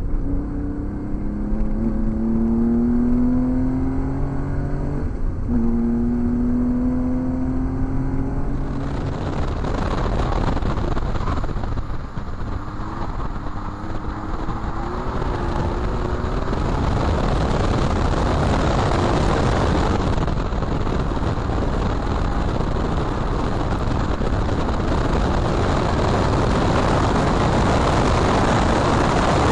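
Porsche 911 flat-six engine accelerating hard from inside the cabin: its pitch rises, drops at an upshift about five seconds in, then rises again. From about eight or nine seconds in, the sound changes to loud, steady wind and tyre noise by the rear wheel, with the engine faint beneath it.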